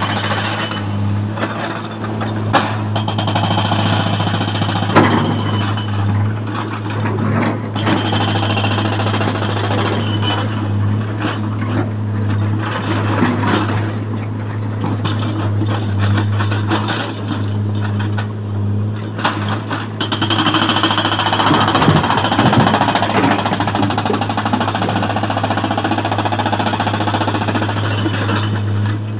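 Hydraulic rock breaker on an excavator hammering rapidly on stone, over the steady running of the excavators' diesel engines, with a few sharper knocks of rock.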